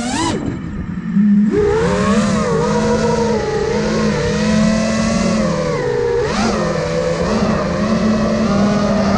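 The brushless motors and propellers of a 5-inch FPV quadcopter (iFlight Nazgul Evoque F5) whining in flight, their pitch rising and falling with the throttle. They drop sharply just after the start, surge back about a second and a half in, and blip up again briefly near the middle.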